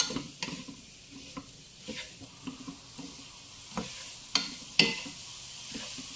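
Mango strips frying and sizzling in a pan while being stirred, with the spoon knocking and scraping against the pan several times; the two loudest knocks come near the end.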